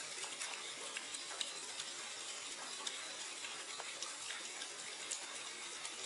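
Steady rush of a small waterfall splashing into a rocky pool, with faint scattered ticks.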